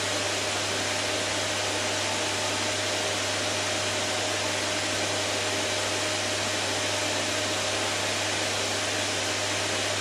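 Electrolux vacuum cleaner's motor running steadily: an even rushing noise with a faint constant whine.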